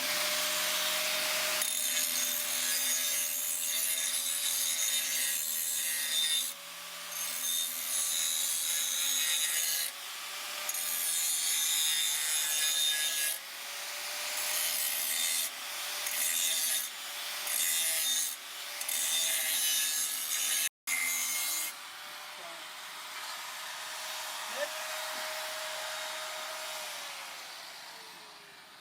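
A small power tool with a steady motor whine rasps and grinds at metal in a series of passes, each one to three seconds long, working through weld on an exhaust part. Near the end the motor whine wavers and winds down.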